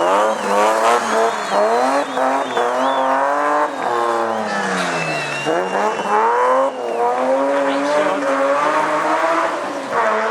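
Rally car engine revving hard at full throttle, climbing in pitch and dropping back with each gear change. About five seconds in the engine note falls steeply, then climbs again. Tyres squeal in places.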